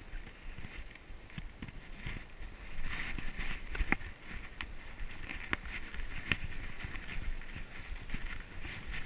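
Mountain bike rolling along a dirt singletrack: tyres rumbling on the trail, with the bike rattling and a few sharp clicks and knocks from bumps about four to six seconds in.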